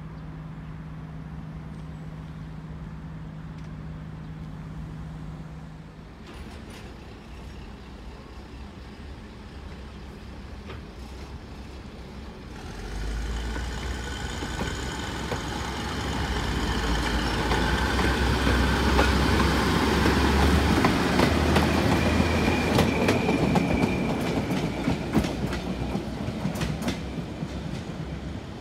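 Two-car narrow-gauge diesel railbus pulling away. A steady low hum gives way, about twelve seconds in, to the diesel engine working hard as it accelerates, growing louder with wheels clicking over rail joints and points. It eases off a little near the end.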